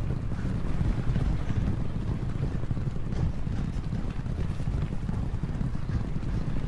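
Galloping hooves of a field of racehorses, a dense low rumble of fast, overlapping thuds that runs on steadily.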